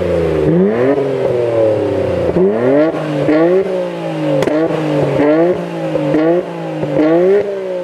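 An R32-generation Nissan Skyline's engine revved hard through its aftermarket exhaust, again and again in quick blips. Each rev climbs in pitch and then drops off sharply.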